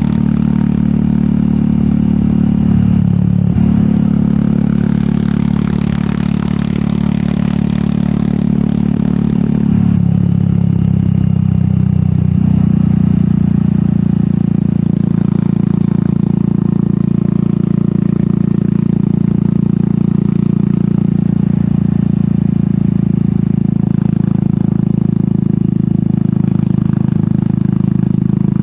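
Royal Enfield Meteor 350's single-cylinder engine running through an aftermarket sport exhaust while riding. The engine note is steady, and its pitch dips and shifts briefly about three seconds in and again around ten seconds in.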